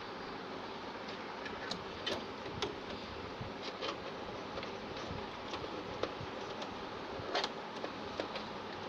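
Irregular light clicks and taps of small hard parts being handled, over a steady hiss.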